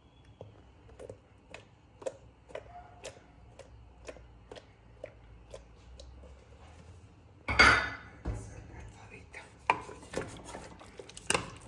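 Cardboard carton of tomato purée squeezed and scraped over an aluminium pressure cooker: soft clicks about twice a second, then one loud clatter against the pot about two-thirds of the way in, followed by a few sharper knocks.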